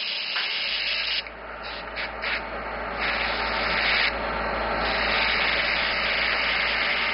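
Airbrush spraying paint: a steady hiss of air, broken by short stops and starts about one to three seconds in, then held on steadily.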